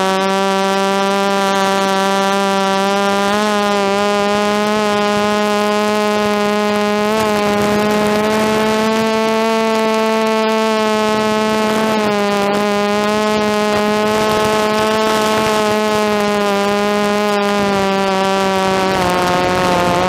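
A DJI F330 quadcopter's brushless motors and propellers whining steadily in flight, heard through the camera mounted on the frame. The pitch drifts up and down a little as the throttle changes.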